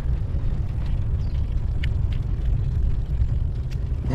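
Wind buffeting the microphone of a camera carried on a moving bicycle: a steady, fluttering low rumble, with a few faint clicks.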